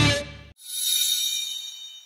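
Intro music ends, then a bright, high chime sound effect rings out and fades away over about a second and a half.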